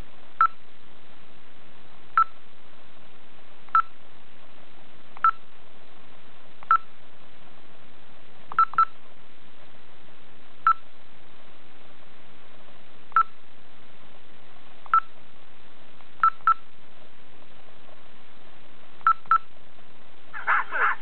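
Short, identical electronic beeps from a portable GPS navigator's touchscreen, one for each stylus tap on its buttons, sometimes two in quick succession, every second or two. Near the end, the audio of a video file starts playing from the unit's small speaker.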